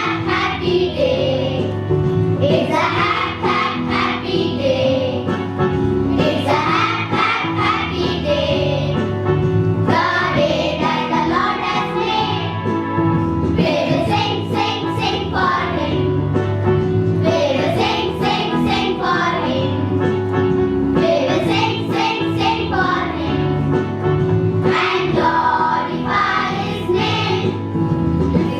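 Children singing a devotional song together over instrumental accompaniment, in continuous sung phrases.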